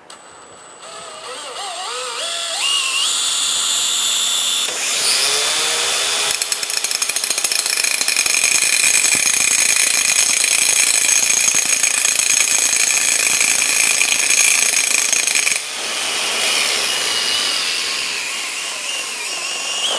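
Angle grinder with a grinding disc and a cordless drill running: the motors whine up in the first few seconds. Then, from about six seconds in, the disc grinds against the end of a spinning metal meat-grinder auger shaft held in the drill chuck, a loud rough grinding over the steady whine. The grinding stops with about four seconds left and a motor winds down.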